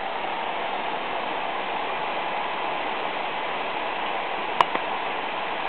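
Cooling fans of a PC with three GTX 580 graphics cards running at high speed under heavy load, a steady rush of air. One sharp click about four and a half seconds in, with a fainter one just after.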